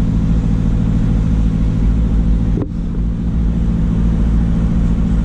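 Nissan 4WD's engine running steadily with low tyre and road rumble, heard from inside the cabin while driving on beach sand. A brief sharp click about two and a half seconds in.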